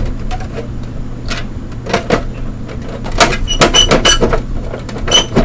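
Clicks and knocks of a Blueberry iMac G3's plastic and metal parts being handled and pried at during disassembly. They come in quick runs after about three seconds, several with a brief high ring.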